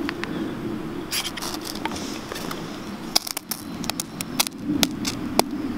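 Ferro rod being scraped hard, its tip planted in a pile of punkwood shavings: a run of short, sharp rasping strikes at irregular intervals, throwing sparks to catch an ember. A steady low hum sits underneath.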